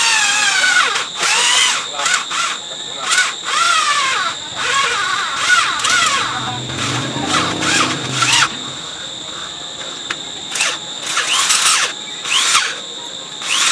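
Electric drill working into a metal part in short bursts, the bit squealing against the metal with a pitch that bends up and down.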